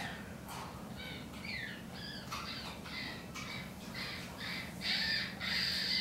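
Relaxed chimpanzee making its bird-like calls: a run of short, squeaky, high-pitched calls, about two a second, some bending in pitch, getting louder near the end.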